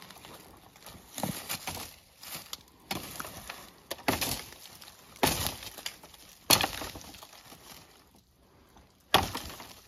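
Busse Battle Mistress, a heavy quarter-inch-thick, 10-inch fixed-blade knife, snap-cutting thin birch branches: about seven sharp cracks of the blade chopping through the wood, roughly a second apart, with a longer pause before the last one.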